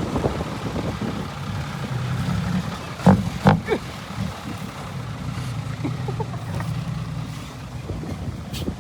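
Dump truck engine running with a loud exhaust, a steady low rumble with two short, louder bursts a little after three seconds in.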